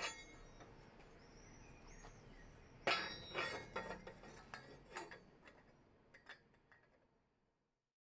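Pieces of steel clinking together: one sharp clink about three seconds in, then a few lighter clinks and taps over the next two seconds.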